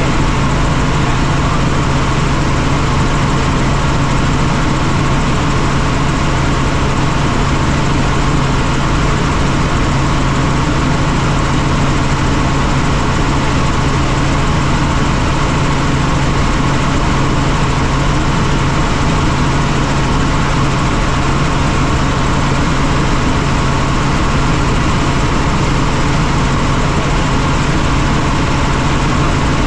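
Helicopter in flight: a steady, loud drone of engine and rotors, a strong low hum under an even rushing noise, unchanging throughout.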